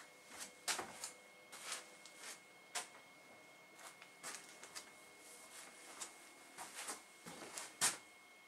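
Footsteps on wooden floorboards and the handling of a handheld camera: a string of irregular soft clicks and knocks, the loudest a little before the end, over a faint steady high tone.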